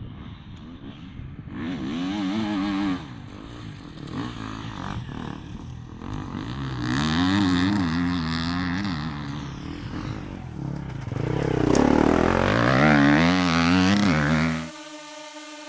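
Four-stroke enduro motorcycle engine with an Akrapovic exhaust, revved in three passages with the pitch rising and falling under the throttle, the last the loudest. Near the end it cuts off abruptly to a steady held tone.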